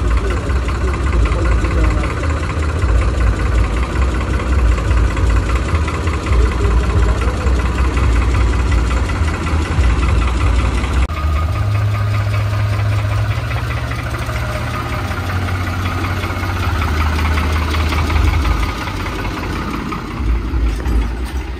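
New Holland 3630 tractor's diesel engine running steadily, heard from the driver's seat. The engine note shifts about halfway through.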